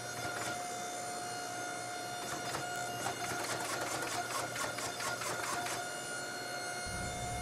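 Hydraulic forging press running with a steady whine as a hot steel billet is squeezed flat between its dies, with scattered light clicks.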